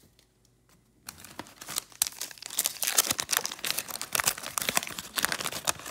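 Wax paper wrapper of a 1986 Topps baseball card pack being torn open and crinkled by hand. It is a dense run of crackles that starts about a second in and goes on.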